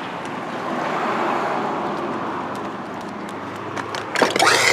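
Bicycle crash: a steady rushing noise swells and then eases, followed about four seconds in by a sudden clatter of impacts with a rising squeal.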